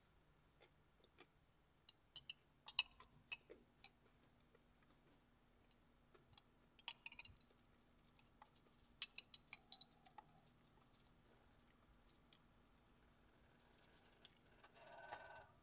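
Metal spoon scraping and clinking against the inside of a glass jar, scooping out the last of the chia pudding: a few light clicks and taps in small clusters, with a brief rustle of the jar being handled near the end.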